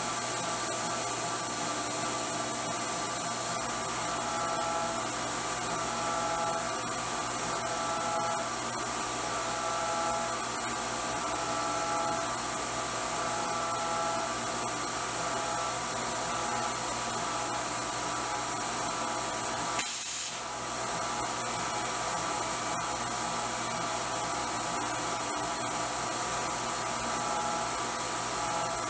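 CNC mill spindle running fast while a small end mill cuts a design into a 52100 tool-steel coin die: a steady high whine over an even hiss, with a fainter tone coming and going about every second and a half as the cutter moves through its passes. A brief click about 20 seconds in.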